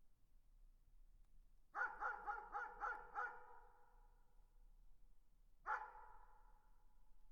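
A distant dog barking: a quick run of about six barks, then a single bark about two seconds later. Each trails off in echo.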